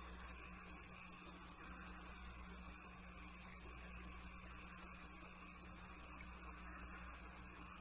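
A night chorus of crickets, a very high-pitched trilling that pulses rapidly and evenly throughout. Two short separate chirps stand out briefly, one about a second in and one near the end.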